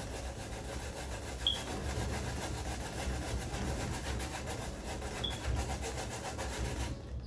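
A carrot being grated on a metal box grater standing in a stainless steel bowl: continuous rapid rasping strokes that stop just before the end.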